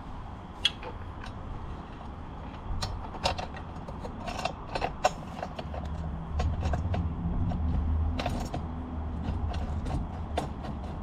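Scattered metallic clicks and clinks of hand tools and bolt hardware being handled while a motorcycle rear rack is bolted on. A low rumble runs underneath from about halfway through.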